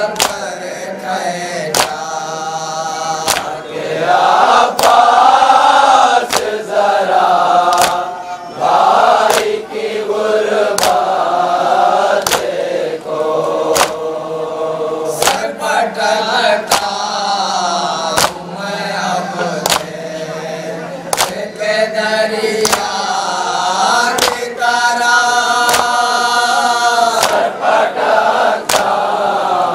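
A group of men chanting a Shia noha (Muharram lament) in unison into a microphone, with chest-beating (matam) slaps keeping a steady beat of about one strike a second.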